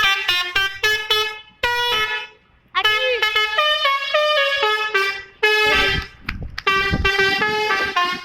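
Bus 'telolet' horn, a multi-tone musical horn, playing quick tunes of stepping notes in several runs with short pauses between them, one run opening with a rising-then-falling sweep.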